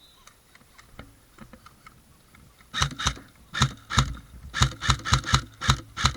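Airsoft gun firing a rapid, irregular string of about a dozen sharp shots, beginning about three seconds in, after a few faint clicks.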